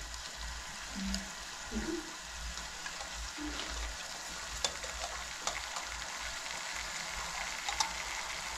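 Food frying in a pan: a steady sizzling hiss with a few sharp clicks.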